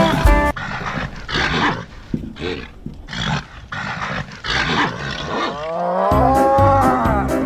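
Recorded bull sounds: a series of breathy grunts about a second apart, then a long, low moo near the end.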